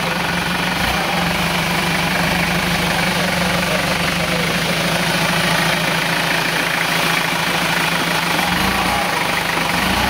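Off-road vehicle engine running steadily with a constant low hum.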